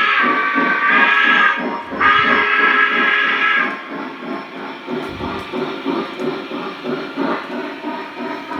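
Lionel Visionline Commodore Vanderbilt O-scale model steam locomotive's onboard sound system. It sounds a chime whistle in two long blasts, the first ending about a second and a half in and the second ending nearly four seconds in, then goes on to a steady rhythmic chuffing as it runs.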